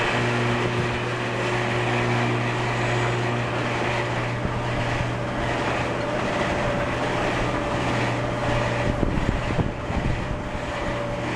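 Carousel drive machinery running steadily on test with its new replacement drive shaft and chain: a constant low hum with a rattling mechanical rumble over it.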